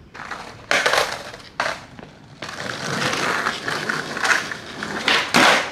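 Skateboard wheels rolling over rough asphalt with a gritty rumble. Several loud clacks of the board on the pavement come about a second in, again shortly after, and near the end.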